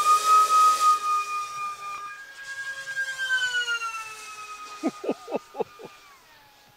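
Brushless electric motor and propeller of a fast 3D-printed RC flying wing under power, a high steady whine whose pitch rises and falls as the wing flies and drops away about six seconds in. Around five seconds there is a quick run of five short sweeping sounds.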